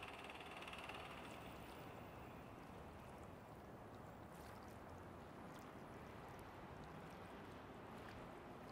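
Near silence: a faint, steady hiss of background noise, with a few soft clicks.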